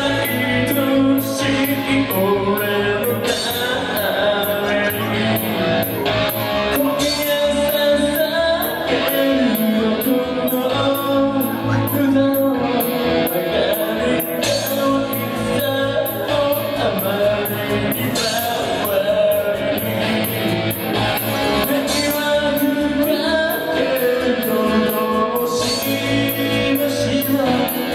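Live rock band playing loudly with distorted guitars and fast drums, with singing over it, in a large room.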